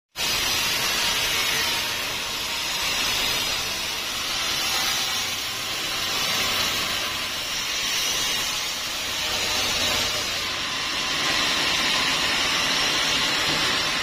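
Band sawmill blade cutting lengthwise through a large log: a steady, loud hiss that swells and eases slightly.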